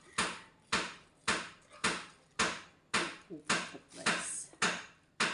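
Steady hammering, a sharp blow about twice a second, each ringing off briefly.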